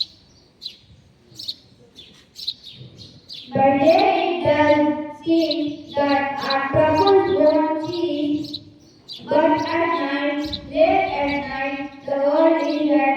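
Children singing in long held notes, starting about three and a half seconds in. Short bird chirps come through the quiet before it.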